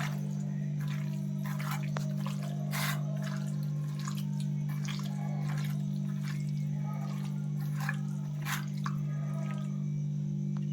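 Irregular wet clicks and squelches of raw chicken being mixed with garlic paste and spices in a bowl, over a steady low hum.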